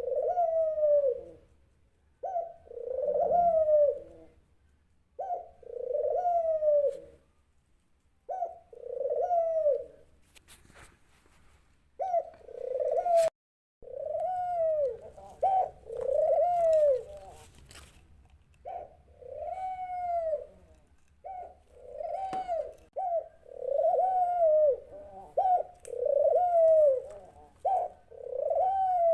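Dove cooing: low arched coos, each about a second long, repeated every couple of seconds. There is a short pause near the middle and one sharp click just after the cooing resumes. The coos come almost back to back in the second half.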